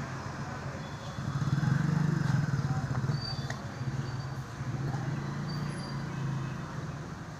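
Low engine hum of a passing motor vehicle, swelling about a second in, loudest around two seconds, then slowly fading.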